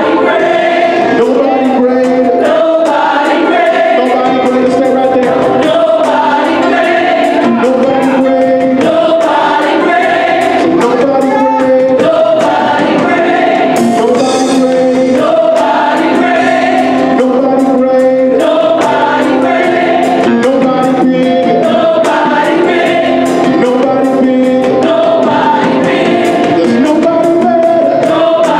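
Gospel choir of men and women singing together, backed by a live band of electric bass, drums and organ keeping a steady beat.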